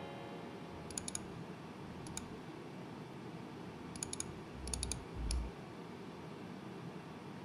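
Scattered computer keyboard clicks over faint room hiss: two keystrokes about a second in, one near two seconds, then a quick cluster around four to five seconds, with a couple of dull low thumps among them.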